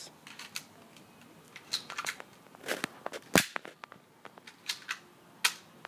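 Irregular sharp clicks and knocks from an old airsoft gun being handled and worked while it is malfunctioning. The loudest knock comes about three and a half seconds in, with another near the end.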